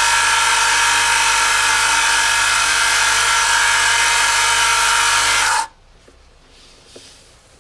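Electric motor of an oil friction-test rig running a steel shaft in a lever-loaded clamp lubricated with 10W-40 engine oil, under 1 kg of added weight two minutes into the run: a loud, steady whine with several fixed pitches. It cuts off suddenly about five and a half seconds in.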